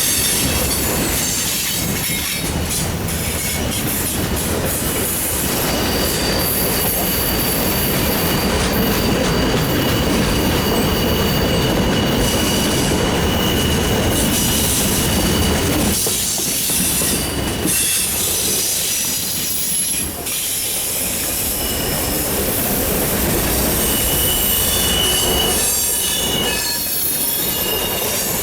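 Freight cars of a mixed freight train rolling past, steel wheels running on the rail. High-pitched wheel squeal comes and goes over the steady rumble.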